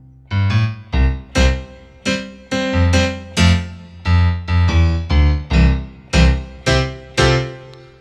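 Piano preset of a Korg Triton software synthesizer played as a run of rhythmic chords, about two a second, each struck and left to ring down; the last chord fades out near the end.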